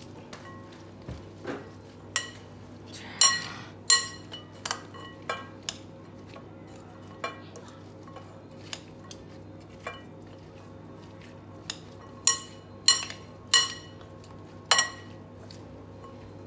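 Metal spoon clinking against a glass mixing bowl while a salad is tossed: irregular sharp clinks, each ringing briefly, bunched in quick runs.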